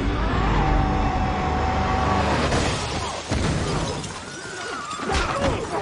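Action-film sound mix: a man's long, drawn-out yell over a heavy low rumble for the first two seconds, followed by scattered crashes and impacts with wavering cries.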